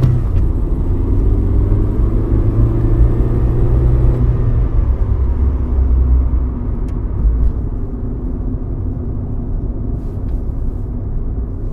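Car driving, with a steady low engine and road rumble; the engine note shifts lower about four seconds in.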